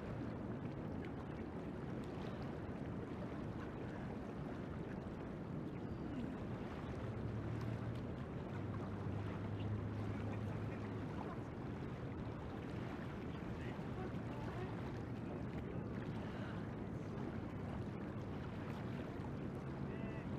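Steady low rush of the river's flowing water, with a low hum that swells for a few seconds in the middle and again near the end.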